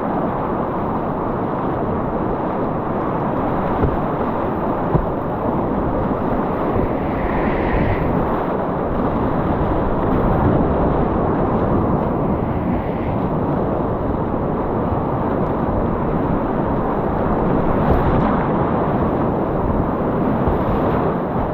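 Whitewater rapids rushing around a kayak: a loud, steady, dull wash of water noise, with two brief knocks about four and five seconds in.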